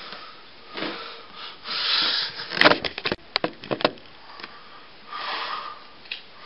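Breathy rustling noise in short swells, with a quick run of sharp clicks and knocks in the middle, from puppeteers moving about and handling their puppets.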